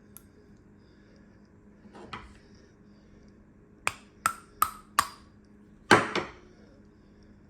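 Metal knocking on metal: a soft knock, then four quick, sharp, ringing taps, then a heavier double knock. This fits the worm-gear train being taken apart, with the torque transfer pin being knocked out.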